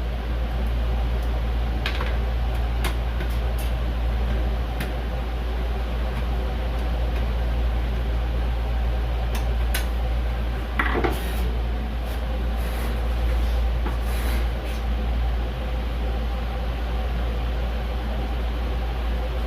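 Steady low machine hum with a few held tones, as of fans running, with a handful of light clicks scattered through it and a short rustle about eleven seconds in.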